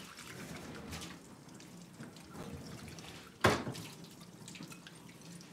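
Steady running water, with one sharp knock about three and a half seconds in.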